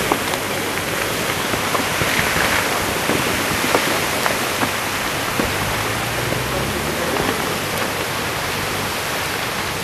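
Steady rushing roar of the Fimmvörðuháls fissure eruption and its flowing lava, with scattered sharp clicks and cracks.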